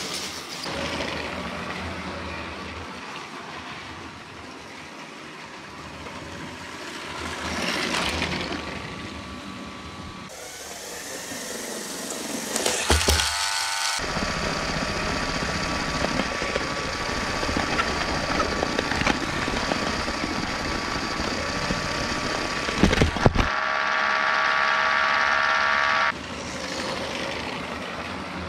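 Motorised Lego trains running on plastic Lego track, their small electric motors whirring and the wheels clattering over the track. The sound shifts at several cuts, and a steady motor whine cuts off suddenly about two seconds before the end.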